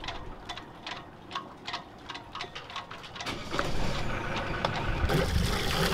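Volvo Penta D2-40F four-cylinder marine diesel being started: light regular ticks about three a second, then about three seconds in the engine cranks over and near the end it catches and settles into a steady run.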